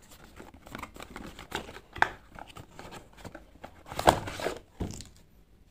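Cardboard box of an Accu-Chek Active glucose meter kit being handled and opened: irregular rustling and scraping of the flaps, with sharp clicks, the loudest about two seconds and four seconds in.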